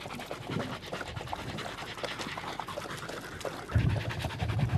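Podenco Canario hunting dogs panting hard in the heat, with the wet, rapid clicking of tongues lapping water. A brief low rumble near the end.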